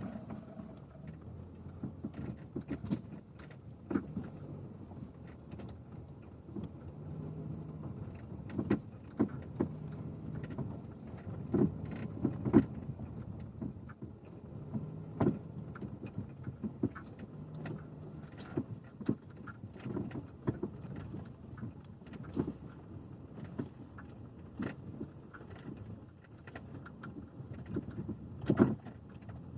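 Irregular knocking from the steering of a Lada XRAY Cross driving slowly, with short sharp knocks every second or so over low engine and road noise. The knocking comes from a nut on the splined steering shaft joint that was left untightened after a dealer repair.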